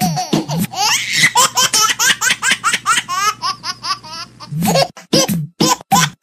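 High-pitched laughter from a child, with a beat of background music coming back near the end.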